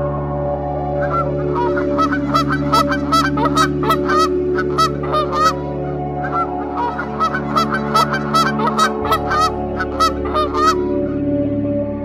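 A flock of Canada geese honking, many short calls in quick succession in two runs, with a brief lull midway, stopping about a second before the end. A steady ambient music pad plays underneath.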